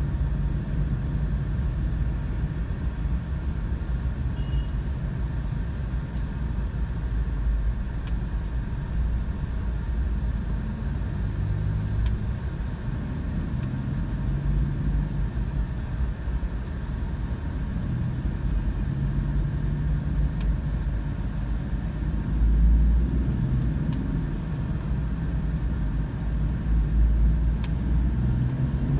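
A car driving in city traffic: a steady low rumble of engine and road noise, swelling briefly louder twice in the last third.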